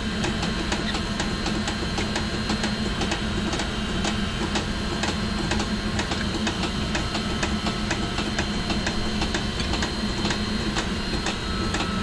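Steady machinery hum of a plant room with chillers running, with a rapid, even ticking all through it.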